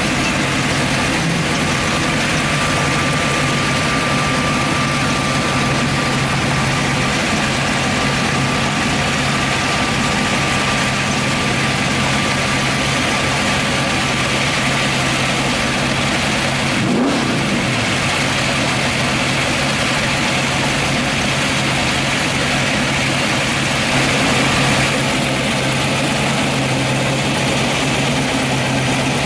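Supercharged 383 stroker V8 with a 6-71 blower in a 1948 Ford Anglia pro-street car, idling steadily, with a brief rev a little past halfway.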